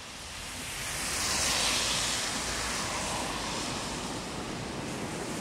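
City road traffic passing: a steady rushing noise of tyres and engines that swells about a second in as a vehicle goes by close below.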